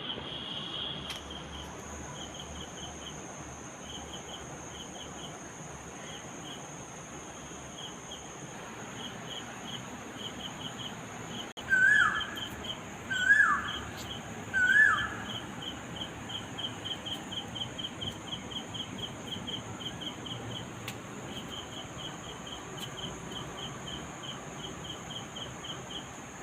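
Crickets chirping in short pulsing groups that settle into a steady rhythm of about four chirps a second, over a constant high-pitched insect drone. About halfway through, a bird gives three loud, short calls, each falling in pitch, roughly a second and a half apart.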